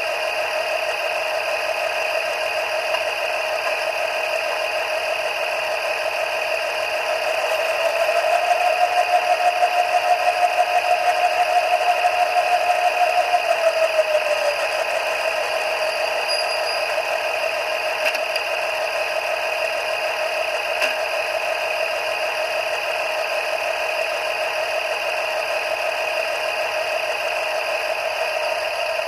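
Sound decoder of an Artitec H0 NS Plan U model train playing the diesel engine at idle through the model's small loudspeaker. About a third of the way in, the engine sound steps up in pitch and throbs for about six seconds, then glides back down to the steady idle.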